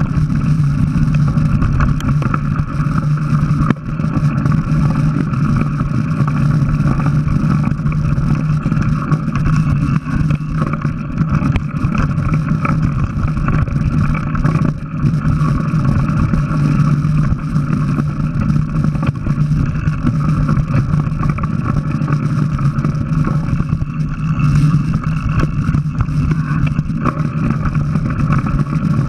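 Mountain bike ridden fast over a dirt trail, heard from a camera on the bike: a steady rumbling drone of tyres, rattling parts and wind on the microphone, with a constant low hum.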